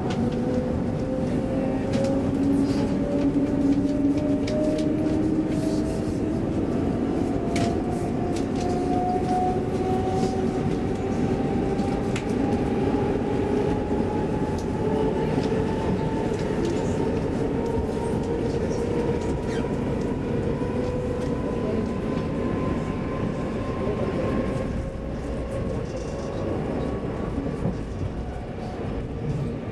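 Interior running noise of a Stockholm X10 electric commuter train: a steady low rumble with a whine that climbs slowly in pitch as the train gathers speed, plus scattered light clicks.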